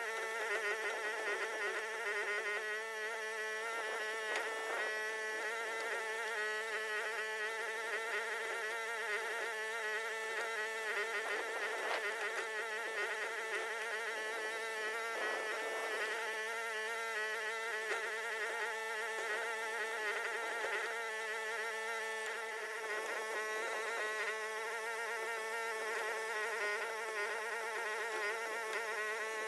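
Huayee HY14C mini excavator's engine running at working throttle, a steady buzzing drone that wavers slightly in pitch as the machine digs.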